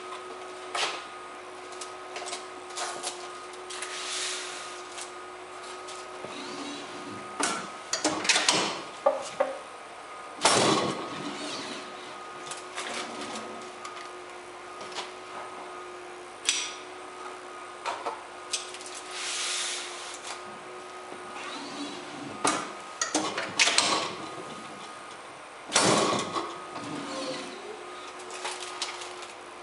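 Compac C3 tray lidding machine being loaded and worked by hand: plastic trays set into the metal tray carrier and the carriage slid in and out, giving bursts of clicks, knocks and scraping clatter, loudest a few times in the middle and near the end. A steady hum runs underneath.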